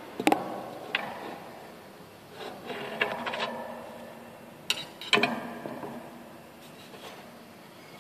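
Handling noise from a smartphone camera being moved about close to the equipment's inner surfaces: a handful of sharp knocks, with a rattling scrape about three seconds in.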